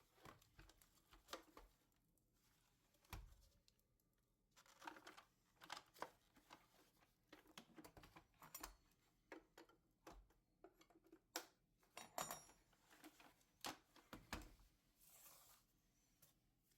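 Faint, irregular handling noises: scattered clicks and light knocks mixed with short rustling scrapes, as of small objects being moved about by hand.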